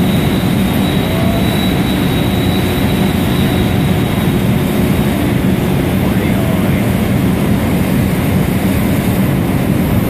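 Loud, steady rushing noise of an electric arc furnace tapping molten steel into a ladle, with a steady low hum and a faint high whine running under it.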